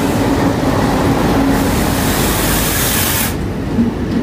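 WDG3A diesel locomotive and its passenger coaches passing close at speed: a loud steady rush of engine and wheel noise. A high hiss rises over it and cuts off suddenly about three seconds in.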